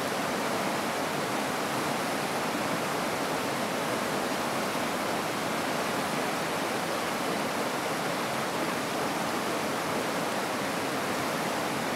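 Steady rush of a fast-flowing stream.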